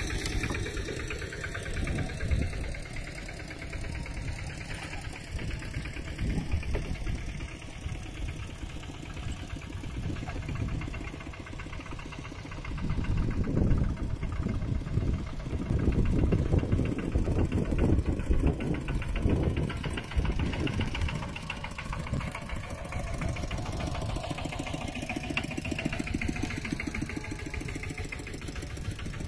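Mini tractor engine running with a rapid, even beat, louder for several seconds past the middle.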